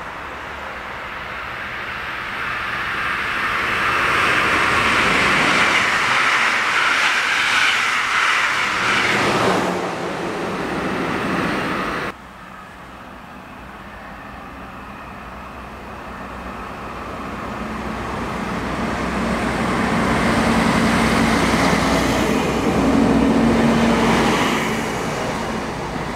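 A diesel railcar approaching along the track, its engine and wheels rising to a peak and then stopping abruptly about halfway through. A second diesel railcar then approaches, growing louder with a steady engine hum toward the end.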